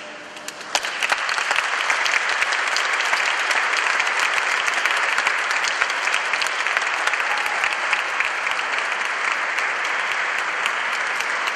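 Audience applause breaking out about a second in: dense, steady clapping that carries on without letting up.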